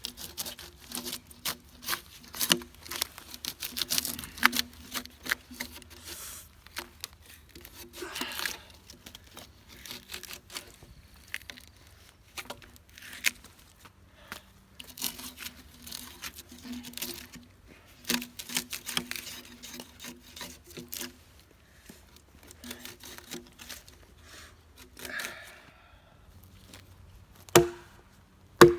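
Bark being hacked and torn off a piece of wood: dense, irregular crackling and splintering, then two sharp chopping strikes near the end.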